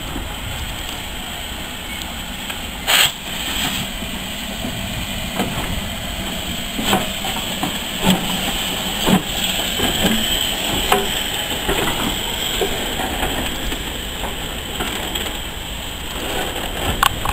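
BR Standard Class 4MT 2-6-0 steam locomotive No. 76084 rolling slowly past at close range: a steady steam hiss with a string of sharp clanks and knocks from its wheels and running gear, the loudest about three seconds in.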